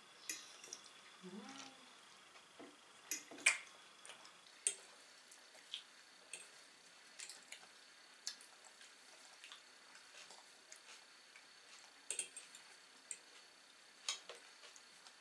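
Sparse soft clicks and taps of a toddler eating salad with the fingers from a plastic bowl: food pieces handled in the bowl and small mouth sounds while chewing, with a short low murmur about a second and a half in.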